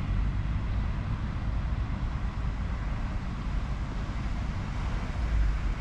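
Outdoor city ambience: a steady low rumble with no single distinct event.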